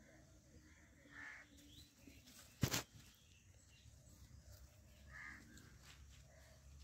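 Soft sounds of a hand pressing loose garden soil around a transplanted cauliflower seedling, with a bird calling twice and one sharp click about two and a half seconds in.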